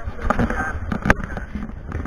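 Rumble and wind noise from a moving vehicle, with a sharp knock about a second in and brief snatches of voices.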